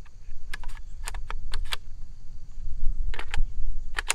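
Sharp metallic clicks and rattles of a Smith & Wesson M&P15-22 rifle being handled and loaded, in two clusters about two seconds apart, over a steady low rumble.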